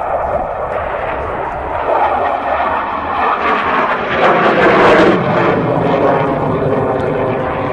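Saab JAS 39 Gripen fighter's single RM12 afterburning turbofan roaring overhead during a display manoeuvre. It is loudest about five seconds in, with a sweeping, phasing tone as the jet moves across the sky.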